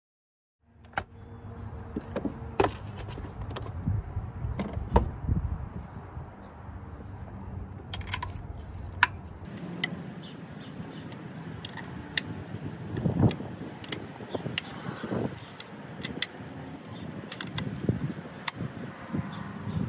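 Ratchet and 17 mm socket clicking and clinking on metal as the nuts of the stock engine motor mount are undone, in irregular sharp clicks, with knocks and handling rumble in the first half.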